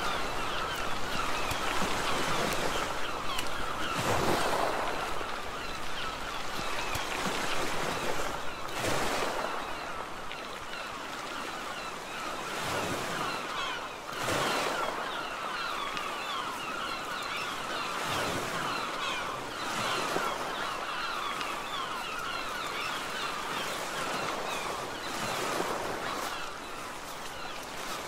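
Sea waves washing on a shore, swelling every few seconds, with a busy chatter of bird calls throughout.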